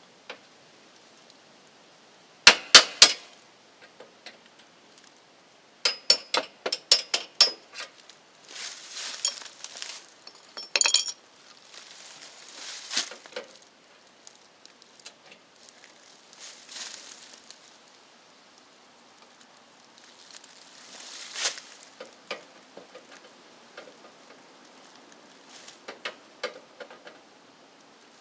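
Tools and small hardware being handled. There are a few sharp metallic clicks about two and a half seconds in, a quick run of clinks a few seconds later, and rustling and scraping in between.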